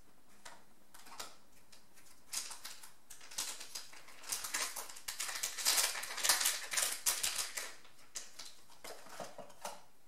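Plastic packaging crinkling and rustling in the hands as a seaweed collagen eye mask patch is taken out of its packet: a run of small crackles, densest and loudest around the middle.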